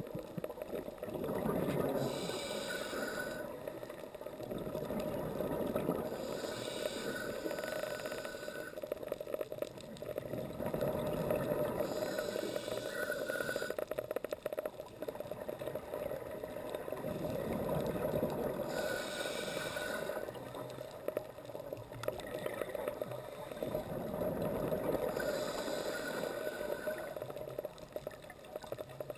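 Scuba breathing through a regulator underwater: a hissing breath about every five to six seconds, with bubbling between, over a steady low water rush.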